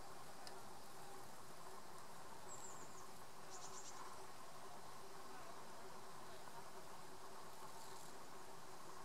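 Steady buzzing hum of a flying insect over a faint outdoor background, with a few brief high chirps between about two and a half and four seconds in.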